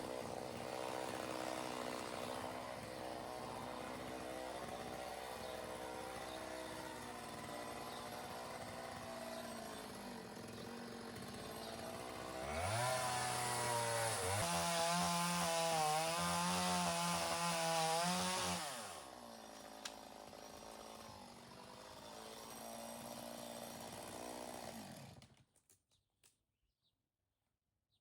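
Chainsaw engine running at a steady lower speed, then revved hard for about six seconds as it saws into dead kowhai wood, dropping back to the lower speed before stopping abruptly.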